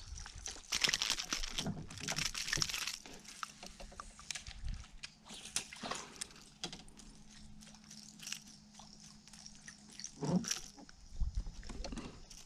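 Scattered clicks and rustles of fishing tackle being handled as a small snapper is let go from a lip grip and a lure is cast and worked back, with a brief hissy stretch in the first few seconds and a faint steady hum through the middle.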